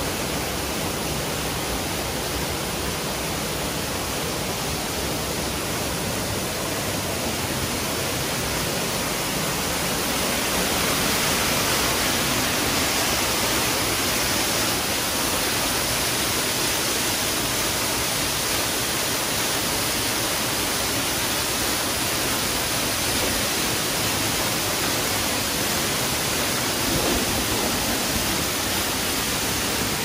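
Water of a large artificial waterfall pouring down rock faces and splashing into the pool below: a steady, full rushing that grows a little louder about ten seconds in.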